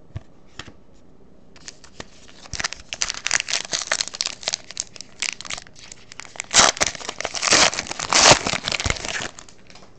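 Plastic crinkling and crackling as a trading card and its clear plastic packaging are handled, with a few light clicks first. The crinkling starts about a second and a half in, is loudest near the end, then stops.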